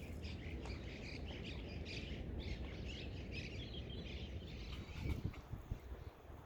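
Small birds chirping in a busy, continuous chatter that thins out near the end, over a low rumble.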